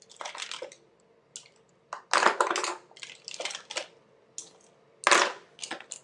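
Rummaging through a bag of makeup products: irregular rustling and clattering as small cosmetic containers knock together, with the loudest handling about two seconds in and again near the end.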